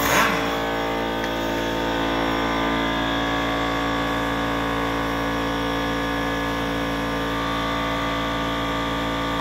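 Shop air compressor running with a steady, even drone, with a brief louder burst of noise right at the start.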